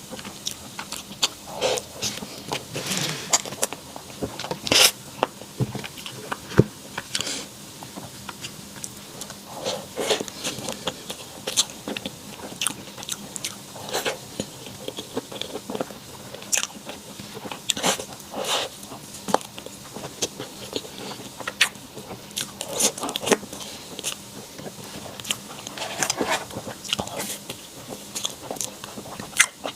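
A person biting into and chewing dessert close to the microphone, with irregular sharp crunchy clicks of bites and chewing.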